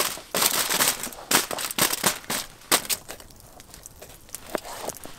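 Aluminium foil and a plastic zip-top bag crinkling as fingerling potatoes and Brussels sprouts are handled, dense for about three seconds, then quieter. Near the end come a few light clicks as a knife cuts into a bell pepper on a plastic cutting board.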